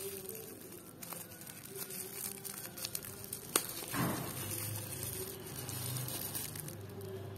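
Thin black plastic wrapping being crinkled and peeled by hand off a die-cast toy car, with a sharp click about three and a half seconds in.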